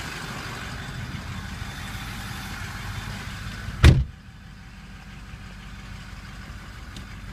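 2005 Ford F-250 Super Duty's 6.0-litre Power Stroke V8 turbo diesel idling, with a truck door slammed shut about four seconds in. After the slam the engine is heard muffled from inside the cab.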